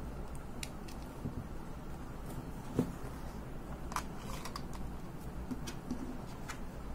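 Plastic camera body and its small remote control unit being handled and fitted into the grip: a handful of light clicks and taps, with one small knock about three seconds in, over a steady low hum.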